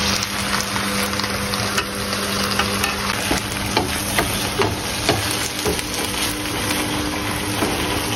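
Food sizzling in a hot frying pan while a utensil stirs it, with many short clicks and scrapes of the utensil against the pan.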